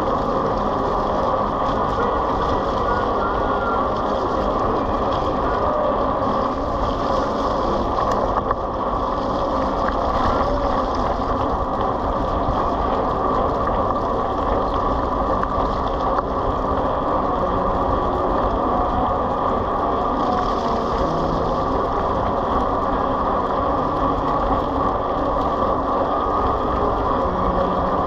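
Steady rumbling road and engine noise of a moving vehicle, even in level throughout.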